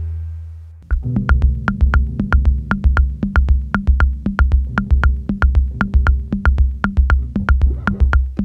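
Electronic background music with a drum-machine beat. It fades away at the start, then comes back in about a second in with steady sharp ticks about four a second over a pulsing bass line.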